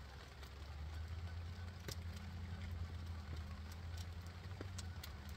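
A steady, low engine drone from a distant vehicle or aircraft, with faint crackling from a small wood fire.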